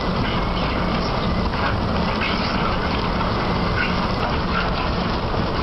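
Bucket-wheel excavator 258 (O&K) at work, a steady dense mechanical rumble from the giant digging machine. Irregular short squeaks and squeals sound over it.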